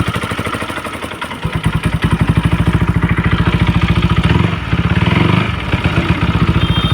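Rebuilt Honda CBR 150 single-cylinder four-stroke engine idling with a steady pulse, its level dipping briefly about a second in. The sound is smooth, the sign that the camshaft-holder wear that caused the earlier noise has been cured with new bushes.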